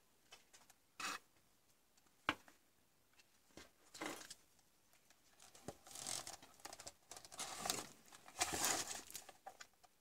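Handling noise: scattered rustles on a paper towel and a sharp click as the monitor power board's wiring-harness cable is handled. The rustling is busiest and loudest near the end.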